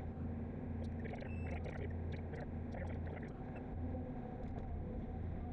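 Excavator diesel engine running steadily with a low hum while the bucket digs a footing trench, heard from the operator's cab, with scattered light clicks and rattles.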